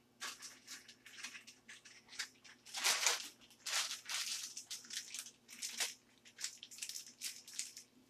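Plastic piping bag crinkling and rustling in many short bursts as it is handled and filled with icing, loudest about three seconds in.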